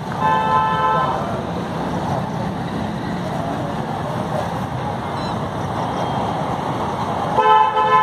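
A two-tone vehicle horn toots twice, each a flat blast just under a second long, one at the start and one near the end, over a steady background hiss.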